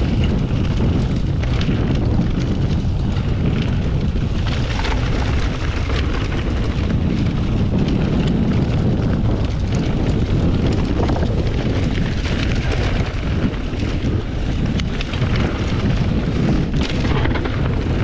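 Wind buffeting the microphone over the rumble of mountain-bike tyres rolling on a packed dirt trail. Frequent short clatters come from the bike rattling over bumps.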